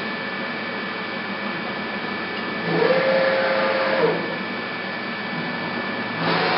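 AVIA FNE 50 N CNC milling machine's table feed drive traversing under numerical control: over a steady machine hum with two high steady tones, a motor whine rises, holds for about a second and a half with a louder rush, and falls away about four seconds in. A second traverse starts near the end.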